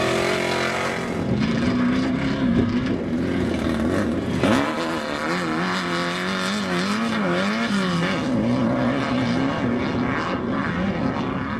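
Off-road desert race vehicle's engine running hard, its pitch wavering up and down as the revs change, with a sharp rev rise about four and a half seconds in.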